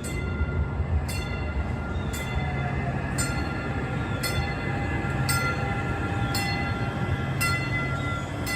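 Train on the move, with a steady low rumble and a sharp click about once a second.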